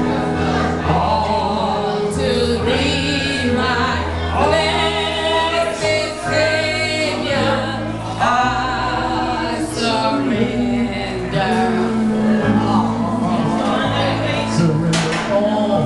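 Gospel singing by a group of voices, with vibrato, over held instrumental chords that change every second or two.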